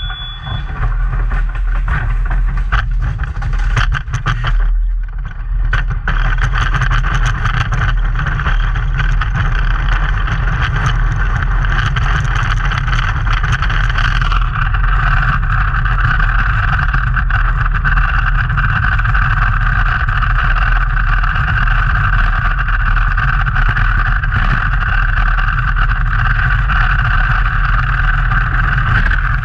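Bobsled running down an ice track, heard from a camera mounted on the sled: a loud continuous rumble and hiss of the steel runners on the ice. About halfway through it turns steadier and brighter. A short beep sounds right at the start.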